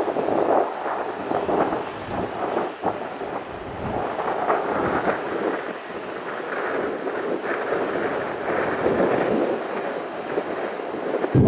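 Jet airliner engine noise, a rough rushing that wavers in loudness, with wind buffeting the microphone.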